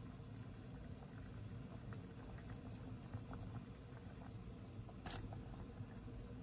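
Water at a rolling boil in a stainless-steel pot of anchovy broth: a low, steady bubbling with small scattered pops. A short sharp splash about five seconds in, as green chili peppers are dropped in.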